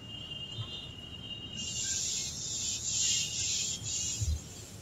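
Whiteboard being wiped with a duster: a high, hissing rub in repeated back-and-forth strokes, starting about a second and a half in. There is a soft low thump near the end.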